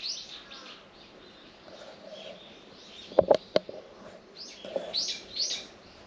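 Small birds chirping outdoors, with bunches of quick high chirps just after the start and again about five seconds in. Three sharp clicks a little past the three-second mark are the loudest sounds.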